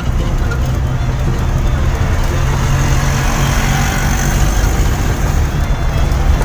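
Motor vehicle engine and road noise heard from inside the cab while driving at a steady speed: a steady low drone with tyre and wind hiss over it.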